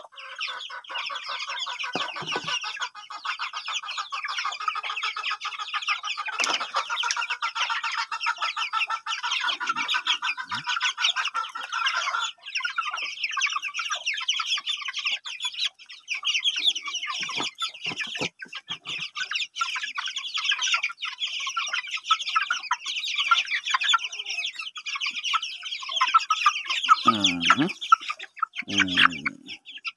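A flock of about fifty young native chickens peeping and cheeping continuously in a dense, overlapping high chorus. Near the end there are two short, lower, falling calls.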